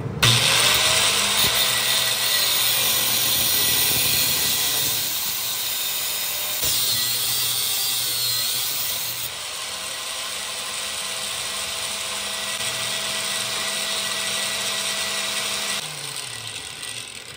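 Angle grinder with an abrasive cut-off disc cutting through a square steel bar, a steady loud grinding. Near the end the motor winds down.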